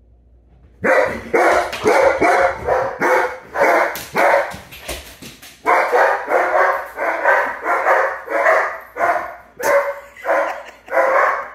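A dog barking loudly and repeatedly, about two barks a second, starting about a second in, with a short break around the middle.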